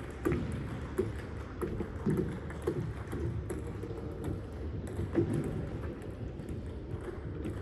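Table tennis ball clicking off paddles and table in a rally, a series of short sharp knocks roughly every half second to a second, with fainter knocks from other play mixed in.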